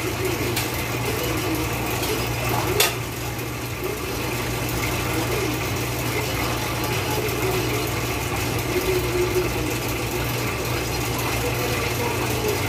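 Steady hum of a motor-driven machine running, with one sharp knock about three seconds in.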